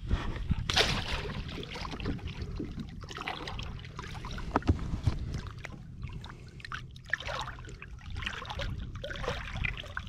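Water sloshing and splashing against a plastic kayak as a redfish is held in the water by a lip gripper before release, with a few short knocks. A steady low wind rumble sits on the microphone underneath.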